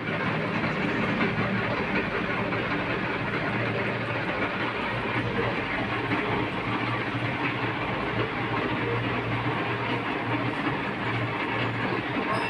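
Metal lathe running and machining an outboard motor's engine block: a steady mechanical whir with a low hum underneath.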